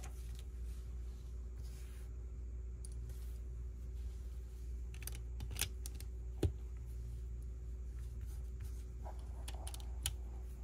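Plastic Lego pieces being handled and pressed together: scattered small clicks, a few sharper snaps, over a steady low hum.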